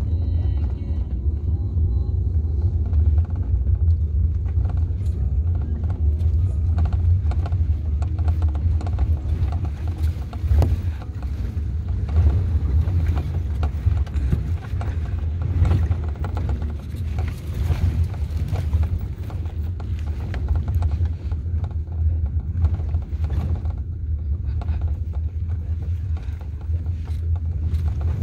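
Steady low rumble of a vehicle heard from inside the cabin while driving on a rough unpaved road, with scattered knocks and rattles from the bumps.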